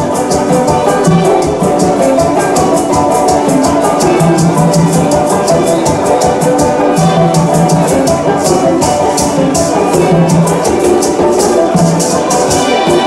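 Small band playing upbeat music, maracas shaking on a steady beat over a repeating low bass figure and other pitched instruments.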